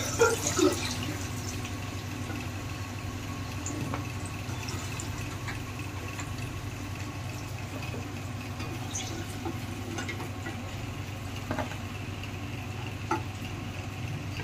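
Hot oil sizzling steadily in a kadhai where raw banana slices have been fried, with a few light clinks of a metal slotted spoon, the loudest in the first second and single ones scattered later.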